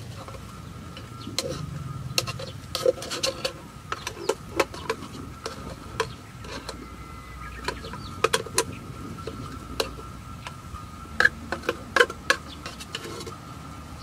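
Grilling over a wood-pellet campfire: irregular sharp pops and clicks, loudest near the end, over a faint steady high tone.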